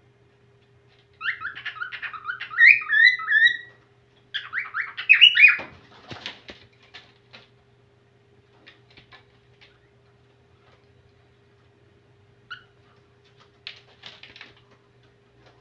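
Whiteface cockatiel singing: two runs of quick whistled, chirping notes in the first half, followed by scattered short chirps and clicks.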